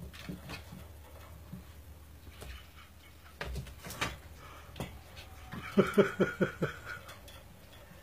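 A cat playing on a wooden floor by a wooden step stool: scattered light knocks and scuffs, with a few sharper knocks a little before the middle. Just past the middle comes a quick run of about six short pitched pulses, about five a second, the loudest sound here.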